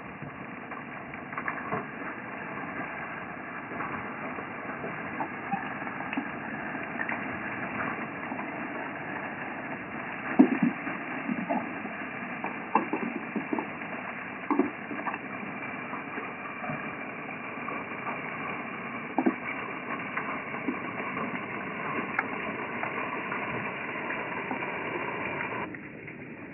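Water jetting from a gold highbanker's spray bars onto gravel in its metal hopper: a steady rush of water with frequent clicks and knocks of stones tumbling against the metal and screen, the loudest about ten seconds in. The rush drops off abruptly near the end.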